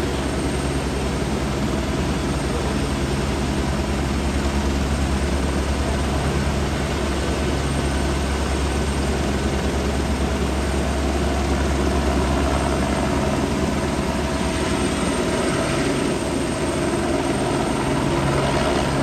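Helicopter's rotor chopping steadily as it hovers low, over a continuous rushing noise from the flooded river below.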